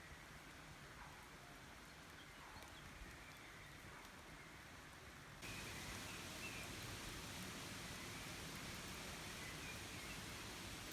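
Steady rush of river water with a few faint bird chirps. About five seconds in the water noise abruptly gets louder and stays so.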